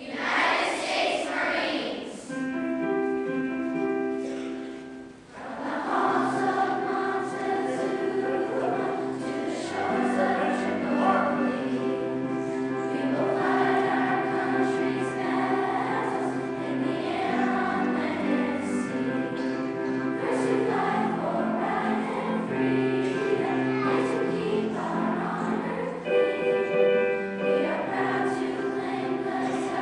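School chorus singing together in held, pitched notes. The singing starts suddenly at the beginning and dips briefly about five seconds in before carrying on.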